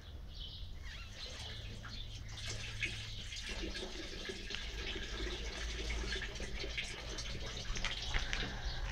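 A German Shepherd nosing and mouthing a chicken on dry leaf litter: a scattering of soft clicks, crackles and rustles, over a steady low rumble.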